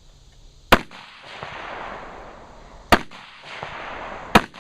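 Three AR-15 rifle shots fired slowly, about two seconds apart and then a second and a half apart, each a sharp crack with a short tail.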